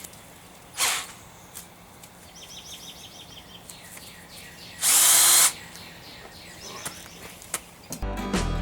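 Small power drill run in a short burst, about half a second long about five seconds in, boring a pilot hole for a self-tapping screw, with a briefer whir about a second in. Guitar music comes in near the end.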